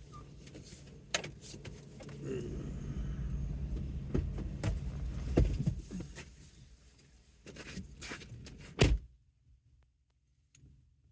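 Clicks, knocks and rustling from handling inside a car stopped at a gas station, with one loud thump about nine seconds in, after which it goes almost silent.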